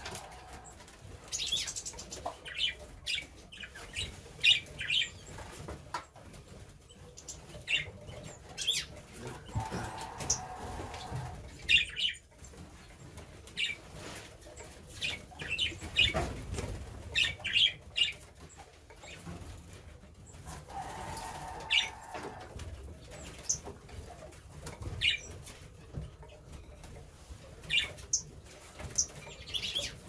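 Small aviary songbirds, finches and canaries, giving short scattered chirps, with a few bursts of wing flutter as they fly about.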